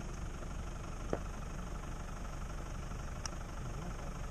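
An engine idling steadily with an even low rumble, with a short click about a second in.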